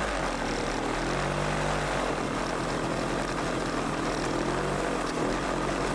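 ATV engine running under way, its pitch rising and falling with the throttle, over steady wind and motion noise.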